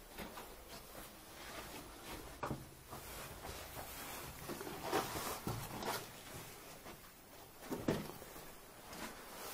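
Footsteps and scuffs on a gritty concrete floor, with scattered knocks and scrapes against concrete walls, in a cramped concrete bunker room. The louder knocks come about halfway through and near the end.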